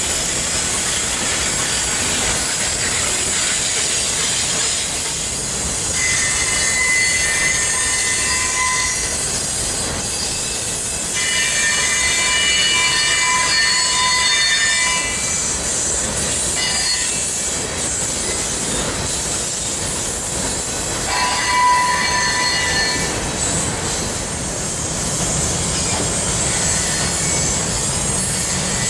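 Freight cars rolling past on a curved track, a steady rumble of wheels on rail. The wheel flanges squeal in high-pitched stretches of a few seconds, several times over.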